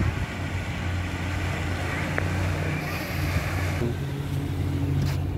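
Water fountains spraying into a pond: a steady hiss over a low steady hum. The hiss stops suddenly about four seconds in, leaving the hum.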